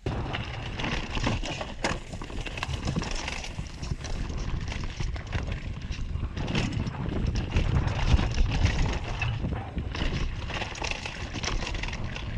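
Mountain bike riding fast down a dirt singletrack, heard from a camera on the bike: tyres rumbling over dirt and roots with constant rattling and knocking from the bike, and wind on the microphone.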